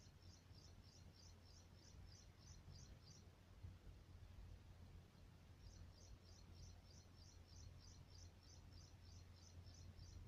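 Faint bird call: a high, short note repeated evenly about three times a second, in two runs. The first stops about three seconds in and the second starts near six seconds in. A low, steady hum of outdoor background lies underneath.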